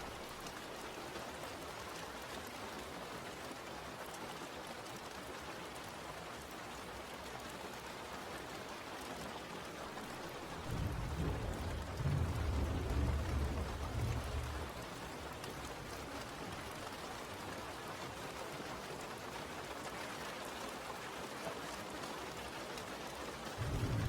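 Steady rain falling, an even hiss, with a low rumble of thunder swelling for about four seconds partway through.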